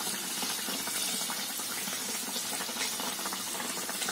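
Hot oil sizzling steadily around a stuffed chana dal puri deep-frying in a kadhai, with many fine crackles.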